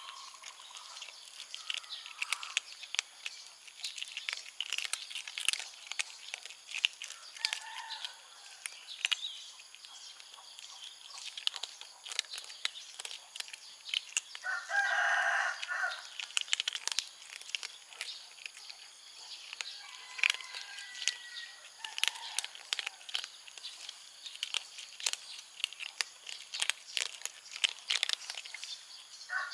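Kittens crunching dry cat kibble: a continuous patter of small crisp crunches and clicks. About halfway through, a louder animal call lasts nearly two seconds, and faint chirps come here and there.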